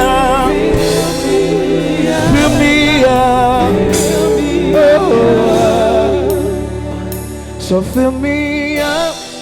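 Gospel worship music: a singer holding long, wavering notes with vibrato over a sustained instrumental accompaniment. It grows softer in the second half.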